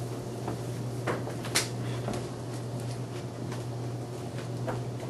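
Steady low hum with a handful of light knocks and clicks, the loudest about a second and a half in.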